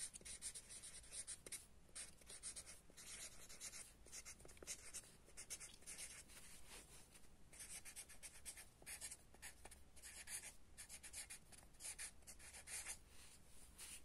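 Faint scratching of a marker pen across lined paper, in short quick strokes and clusters as words are written out.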